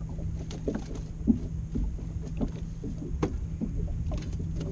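Small fishing boat on the water: a steady low rumble with a faint steady hum, and many light, irregular knocks and splashes against the hull.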